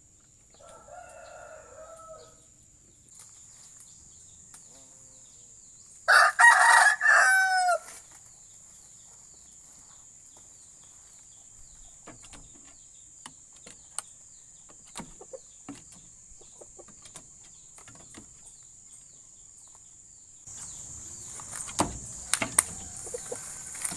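A rooster crows once, about six seconds in, for about two seconds, the loudest sound here; a fainter short call comes before it. Scattered light clicks follow, and near the end come louder knocks and rustling.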